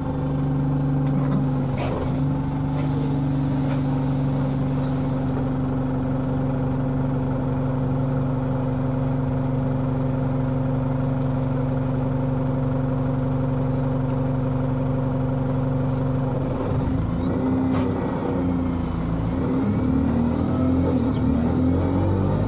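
Alexander Dennis Enviro200 single-deck bus engine running at a steady note. After about seventeen seconds the note breaks up, and from about twenty seconds it climbs as the bus revs up and accelerates, with a high whine rising alongside it.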